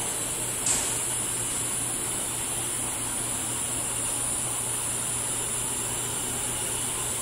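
Steady hiss with a low hum and one light click about a second in; the air compressor's motor and pump are no longer running.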